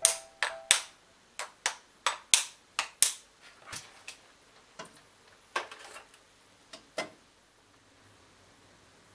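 Eggs being set one by one into an aluminium pot of cold water, the shells knocking against the pot in sharp, irregular clicks that stop about seven seconds in.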